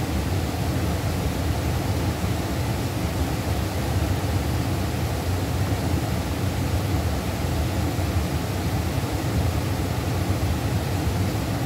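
Steady rush of a fast-flowing mountain river, an unbroken noise heaviest in the low end.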